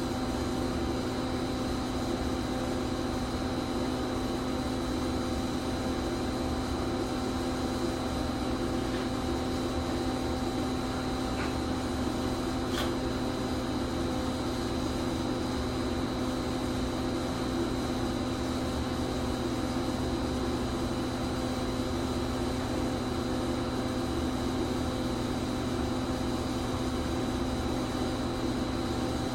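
Electric pipe-thawing machine running with a steady electrical hum while current is passed through a frozen pipe to thaw it. There is a faint click about halfway through.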